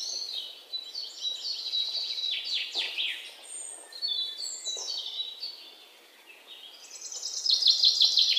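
European robin singing: high, thin warbling phrases of quickly changing notes with short pauses between them, and a faster phrase of rapid notes near the end.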